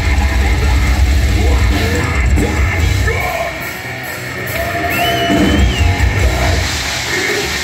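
Death metal band playing live: distorted downtuned guitars, bass and drums with harsh shouted vocals, heard from within the audience. The music drops a little in loudness about halfway through, then builds again.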